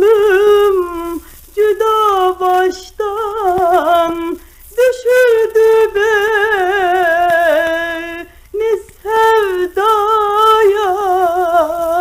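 A woman singing a Turkish song in long, ornamented phrases with a wavering vibrato, pausing briefly for breath between phrases. The sound is thin and narrow, as on an old gramophone record.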